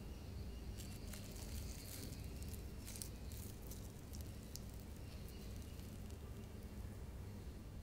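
Fried potato corn dog's breadcrumb crust crackling faintly as it is pulled apart by hand, with soft squishing from the mashed potato and melted cheese inside. The crackles cluster in the first half, over a faint low hum.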